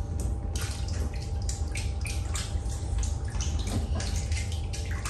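Water splashing and sloshing in a small inflatable pool, in irregular bursts, over a steady low rumble.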